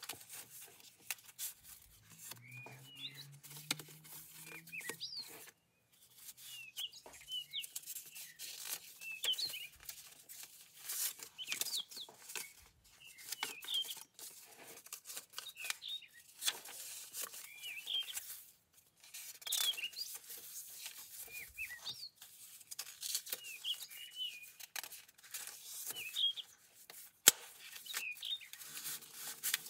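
Paper pages of a handmade junk journal rustling and crackling as they are turned and handled, with one sharp tap near the end. Small birds chirp repeatedly in the background.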